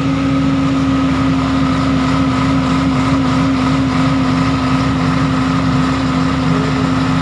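Mitsubishi 125 kVA diesel generator set running steadily, an even mechanical drone with a strong constant hum.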